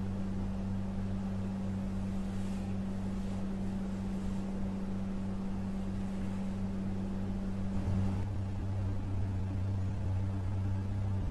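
A steady low hum over a faint hiss, with its pitch balance shifting slightly about eight seconds in.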